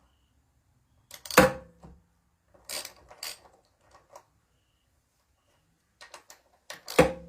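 Clicks and knocks of metal tools or small engine parts being handled and set down on a hard surface. Two sharp knocks, about a second and a half in and near the end, each ring briefly, with lighter clicks between.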